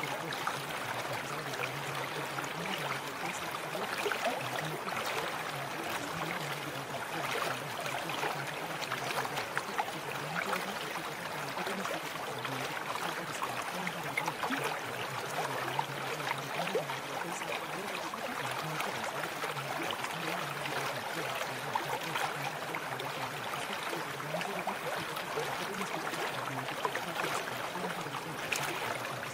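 Steady noise of flowing water, like a running stream, serving as the masking sound track of a subliminal recording. A faint low hum comes and goes beneath it every couple of seconds.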